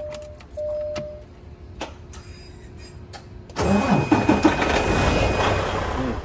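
A cab warning chime beeps twice. About three and a half seconds in, the semi truck's diesel engine cranks and fires with a loud burst of noise, then settles into a low, steady idle.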